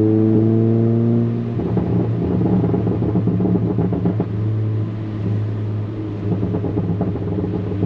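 Exhaust of a Stage 2 tuned VW MK7 GTI's turbocharged 2.0-litre four-cylinder, with a 3-inch catless turbo-back exhaust, heard from inside the cabin. Its droning note climbs steadily under load, then about a second and a half in it drops off load into a low drone with irregular crackles and pops.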